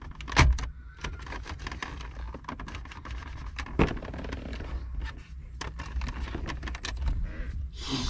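Plastic center dash bezel of a Jeep Wrangler JK being tugged and worked by hand: scattered small clicks and creaks, with two louder knocks about half a second in and near four seconds, as the panel resists coming out.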